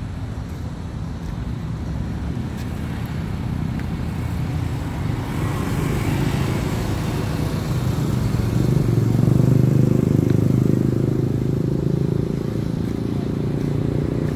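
Road traffic running steadily, with a motor vehicle's engine growing louder and passing about nine to eleven seconds in.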